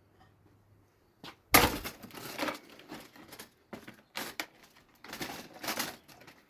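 A microwave-burnt toaster being pulled apart: a sharp crack about a second and a half in, then irregular cracking and crunching as its parts break loose.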